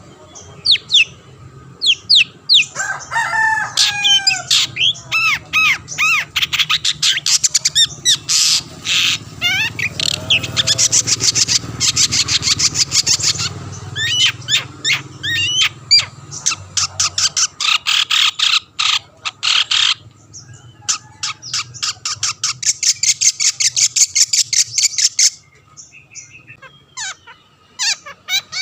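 Long-tailed shrike (cendet) in full song: a varied, continuous string of downslurred whistles, harsh chattering notes and long, very fast rattling trills. The singing thins out briefly near the end.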